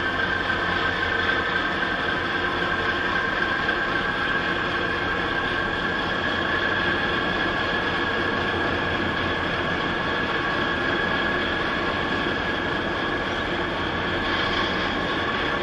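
Steady mechanical drone from a passing container ship's machinery, with several high whining tones held over a rumble.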